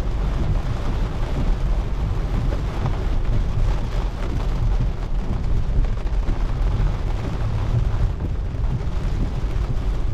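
Steady road noise of a Tesla Model 3 driving on a rain-soaked road, heard from inside the cabin: tyres hissing through water and spray, with rain falling on the car and a continuous low rumble.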